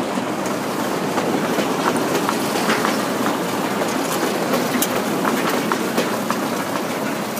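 Empty steel-mesh sugar cane bins of a 2 ft gauge cane train rolling past, a steady rolling noise from the wheels on the rails with scattered clicks and clanks from the wagons.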